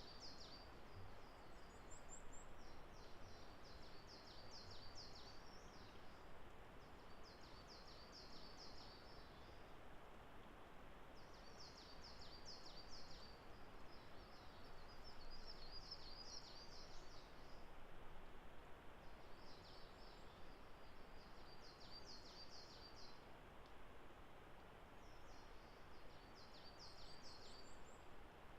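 A small songbird singing short, high, rapid trilling phrases, repeated every few seconds, faint over a steady hiss of background noise.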